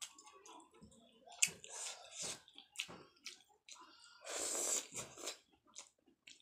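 Close-up eating sounds: wet chewing and lip smacks, and fingers squelching in a bowl of cauliflower curry. About four and a half seconds in, a louder, longer wet slurp as a handful goes into the mouth.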